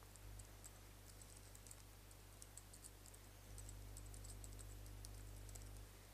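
Faint computer keyboard typing: a quick, uneven run of light key clicks as a username and password are entered, over a low hum that grows louder past the halfway point.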